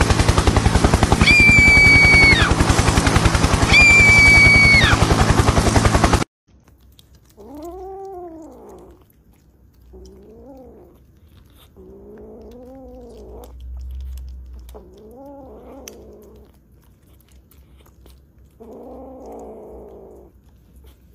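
A kitten mewing five times, a few seconds apart; each call rises then falls in pitch. Before the mews, a loud, fast pulsing sound with two high held squeaks fills the first six seconds and then cuts off.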